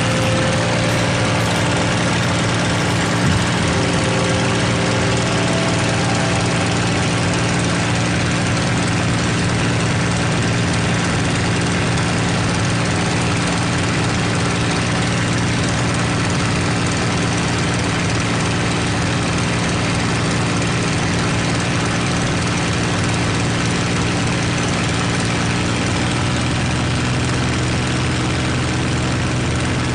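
P-51 Mustang's Packard-built V-12 Merlin engine and propeller droning steadily in flight, with a heavy rush of air over the canopy, heard from inside the cockpit.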